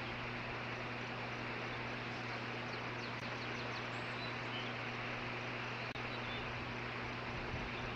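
Steady outdoor background noise with a low electrical hum, picked up by a nest-cam microphone. About three seconds in comes a brief, faint, rapid series of high bird chirps.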